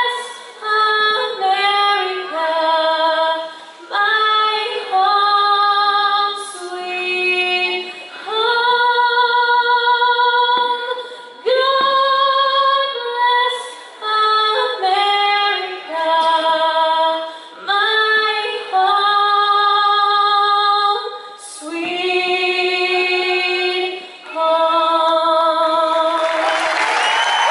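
A woman singing solo, holding long notes with vibrato. Crowd applause starts as the last note ends near the end.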